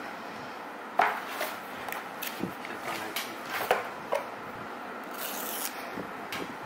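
A cardboard iPhone box being handled and turned on a wooden table: fingers rub and scratch at it, with scattered light taps and scrapes against the tabletop and a short scratchy hiss a little past five seconds.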